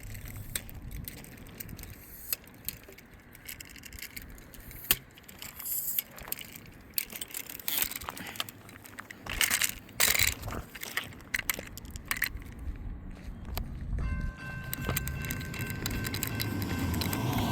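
Scattered clicks and rustling close to the microphone. From about fourteen seconds in, a rising rumble with faint steady tones as the BNSF intermodal train approaches.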